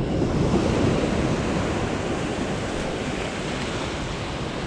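Steady wash of sea surf at the shoreline, with some wind on the microphone.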